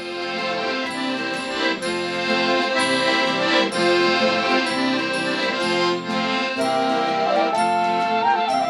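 Background music: the instrumental opening of an Italian Christmas folk song, held chords with a higher melody line coming in near the end.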